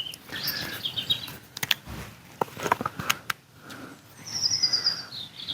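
European robin singing: thin, high warbling phrases, with a trill falling in pitch about four and a half seconds in. A few sharp clicks sound between the phrases.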